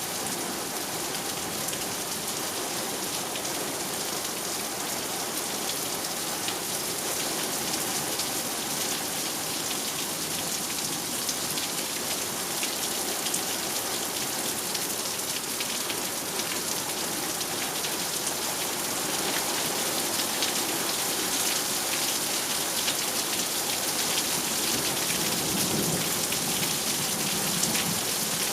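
Heavy rain falling steadily during a thunderstorm, many individual drops ticking on hard surfaces, growing a little heavier partway through. A low rumble of distant thunder rises near the end.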